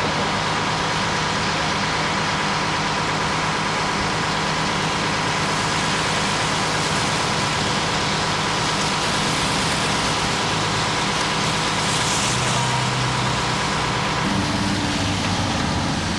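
A vehicle engine running steadily at idle under a constant broad hiss. The low hum shifts a little about fourteen seconds in.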